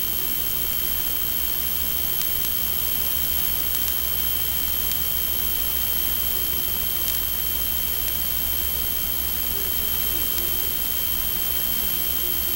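Steady hiss with two constant high-pitched whines and a low hum underneath, broken only by a few faint ticks.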